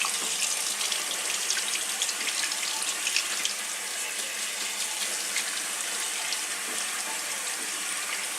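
Tap running steadily into a sink while a large kitchen knife is washed under the stream, with light clicks and scrapes of the washing.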